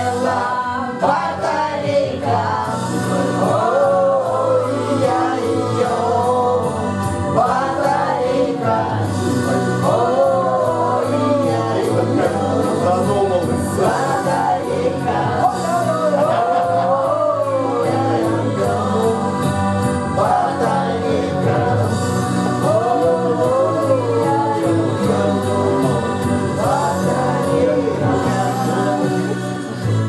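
Russian pop-rock song playing: a sung melody, several voices together, over a steady band backing.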